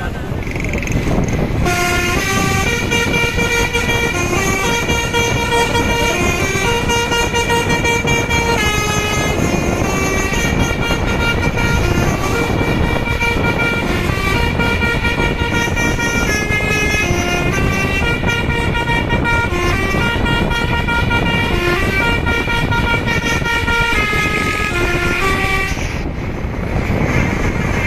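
A Basuri telolet multi-tone bus horn on an SJM Trans bus plays a long tune of short, stepped notes. The horn starts about two seconds in and stops about two seconds before the end, over a steady background noise.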